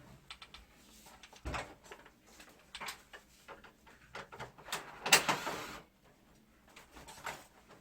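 Plastic parts of a wall-mounted air conditioner being pulled out and handled during disassembly: a run of light clicks and knocks, with a louder scraping rustle about five seconds in.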